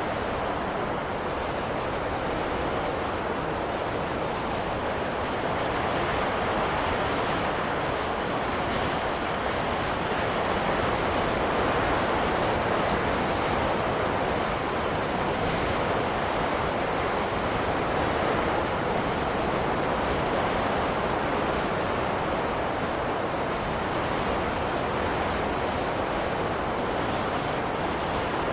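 Steady wind blowing, a continuous rushing noise that swells slightly and eases again.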